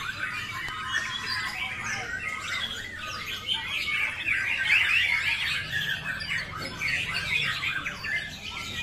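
Several caged white-rumped shamas (murai batu) singing at once in a song contest, a dense overlapping chorus of quick chirps, trills and whistles.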